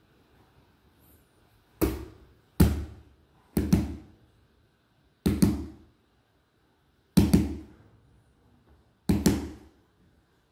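Six loud, sharp knocks at uneven intervals, each dying away over about half a second.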